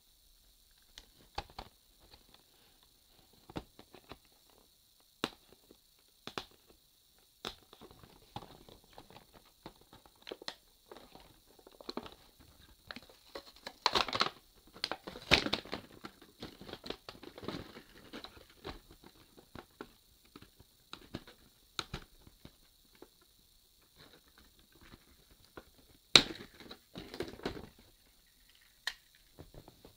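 Stiff plastic blister packaging and cardboard being handled and pulled open: scattered clicks, crinkles and cracks that are busiest in the middle, with one sharp crack near the end.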